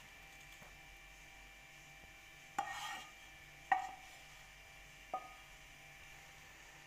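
Metal cookware clinking: three sharp knocks with a short ring, a second or so apart, the first followed by a brief scrape, as a pan is tipped against a steel mesh strainer to pour and scrape out jaggery syrup.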